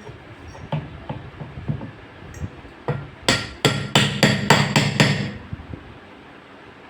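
Hammer blows on a part during a washing machine drum repair. A few scattered taps come first, then about halfway through a quick run of about seven hard strikes, roughly four a second.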